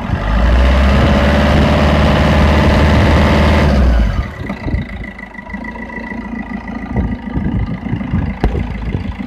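Diesel car engine revved by the accelerator and held up for nearly four seconds, then dropping back to idle. It is being revved to bring out a noise that the owner hears only when the engine passes about 2000 rpm.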